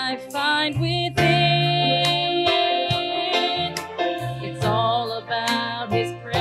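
A woman singing a worship song into a handheld microphone over instrumental accompaniment, holding some notes and bending the pitch on others.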